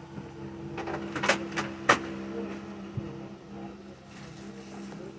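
Clear plastic saree boxes being handled, giving a few sharp clicks and crackles about a second in, the loudest near the two-second mark, over a steady low hum.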